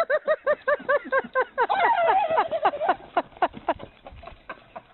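An animal calling in a long rapid run of short, arched, pitched notes, about five a second, that grow sparser and fainter near the end.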